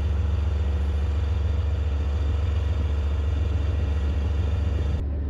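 Gepard anti-aircraft tank's diesel engine running steadily, a deep even rumble. The hiss above it drops away near the end.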